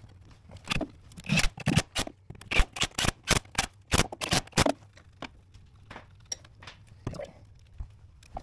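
Sharp metal clanks and clicks from parts and hand tools being handled at a dozer's transmission pump mount: a quick irregular run of knocks between about one and five seconds in, then a few scattered ones.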